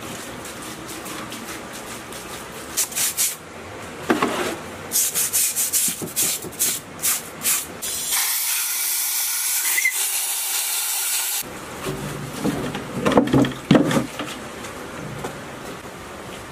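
Cleaning a scrapped diesel engine's crankcase: repeated short scrubbing strokes on the grimy metal, then a steady hiss from a hose for about three seconds that cuts off suddenly, followed by a few knocks and clatters of metal parts near the end.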